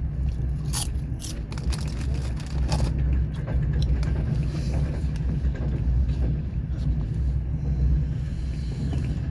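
Passenger train carriage in motion heard from inside: a steady low rumble with scattered clicks and rattles.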